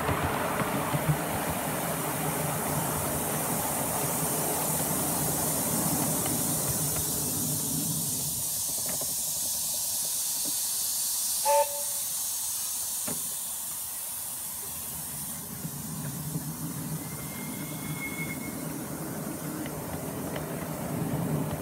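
7¼-inch gauge miniature steam locomotive, a model of a BR Britannia-class Pacific, running with a steady hiss of steam and the rumble of the train on the rails. About halfway through there is a short, loud toot of its whistle.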